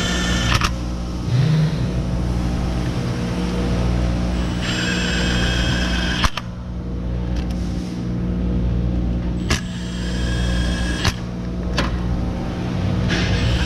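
Milwaukee M12 Fuel cordless power tool running the oil pump's 6 mm bolts down in four short bursts, each about a second and a half of steady motor whine. There are a few sharp clicks between the bursts and a steady low hum underneath.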